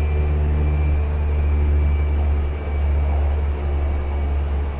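Single Pratt & Whitney PT6A turboprop engine of a Cessna Caravan running at low power, heard from inside the cabin: a steady low drone with a high turbine whine over it.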